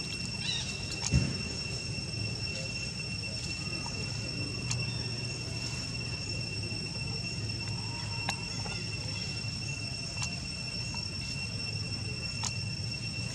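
Insects trilling with one unbroken high-pitched drone over a low background rumble. A few sharp clicks or knocks break in, the loudest about a second in.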